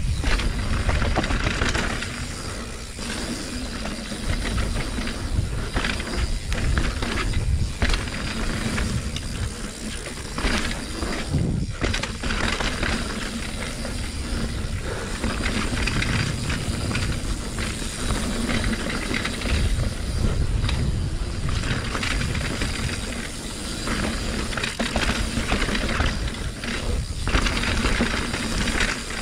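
A 2020 Norco Torrent HT steel hardtail mountain bike riding down a wet trail. Tyres roll over dirt and rocks under a steady low rumble, and the bike rattles and clatters with many short knocks over the bumps.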